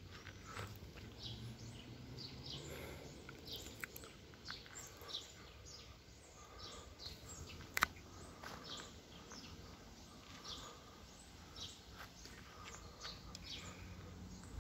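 Small birds chirping in many short, high calls, over a faint low background hum, with a single sharp click about eight seconds in.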